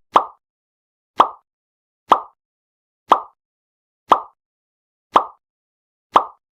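Evenly spaced ticks, about one a second, each short and dying away quickly, against silence, like a clock ticking.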